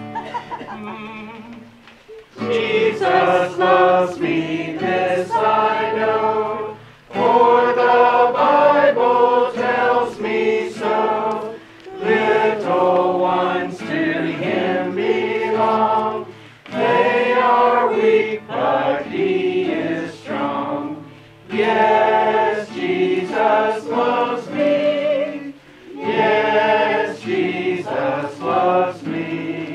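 A congregation singing together, in sung phrases with short pauses for breath between them; the singing starts about two seconds in.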